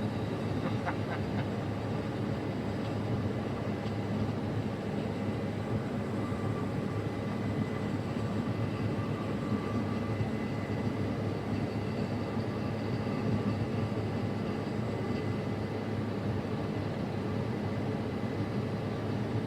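Case IH 8250 combine running steadily under load while harvesting wheat: an even machine hum with a faint high, steady whine over it.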